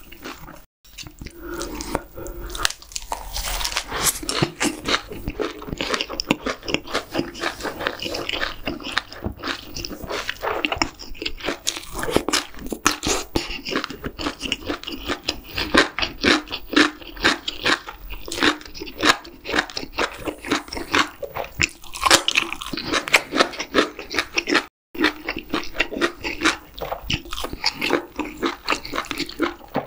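Close-miked chewing of a mouthful of lettuce wrap with spicy stir-fried webfoot octopus, bean sprouts and rice: steady crunching and wet biting, many quick chews a second. The sound cuts out for a moment twice, once just after the start and once near the end.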